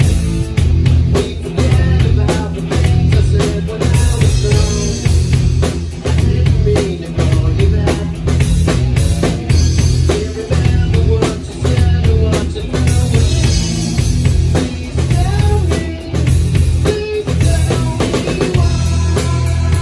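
Drum kit played hard and close up in a live rock band: kick drum, snare and cymbals driving a fast beat over electric guitar and bass.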